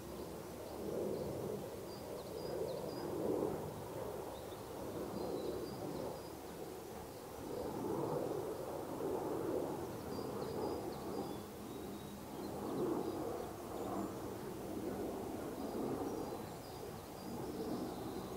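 Distant steam locomotive working hard as it approaches, its exhaust a low chuffing that swells and fades every second or two.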